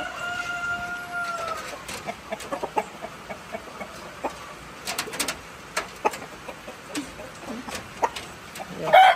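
Roosters calling. One holds a drawn-out call on a steady note for about a second and a half at the start. Scattered light clicks follow, and near the end another rooster starts a loud crow.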